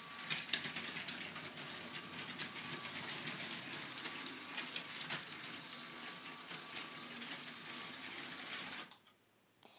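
Motorized Lego train running around plastic track: a steady motor whir with many small clicks from the wheels and wagons, which cuts off suddenly about nine seconds in.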